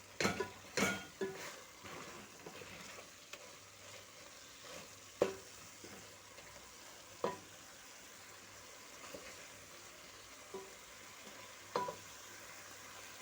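A cooking stick stirring a stew in a metal sufuria, knocking sharply against the pot several times in the first second and a half, then single knocks a few seconds apart, over a faint steady sizzle from the pot.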